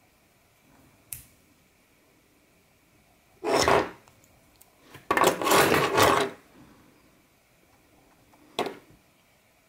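Metal folding pocket knives being handled: a sharp click about a second in and another near the end, and two louder bursts of rubbing and clatter in the middle as knives are moved over the pile.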